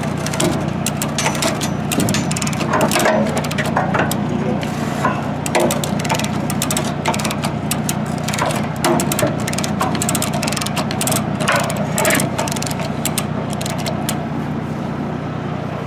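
Lever chain hoist being ratcheted under load, with irregular clicking and clinking of its pawl and load chain as it pulls the heavy steel dump and sideboard of a scraper pan into place. A steady low engine hum runs underneath.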